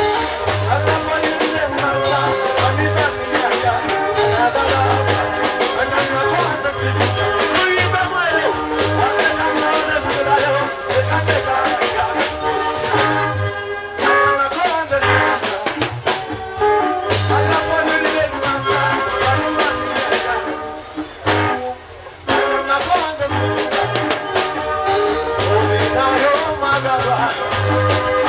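Live band music with a drum kit and bass guitar playing a steady dance beat, with short breaks about halfway through and again about three quarters of the way in.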